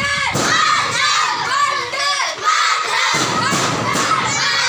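A group of children shouting together in chorus as they march, raising their fists, much like chanted slogans. Low thuds sound underneath, near the start and again past the middle.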